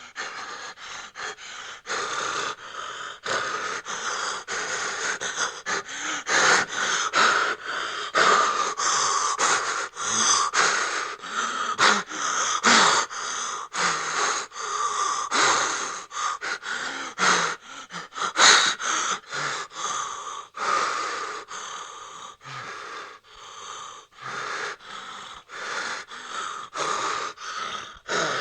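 A person breathing fast and ragged in frightened, asthmatic gasps and wheezes, short breaths in and out one after another without a pause. One sharper gasp stands out about two-thirds of the way through.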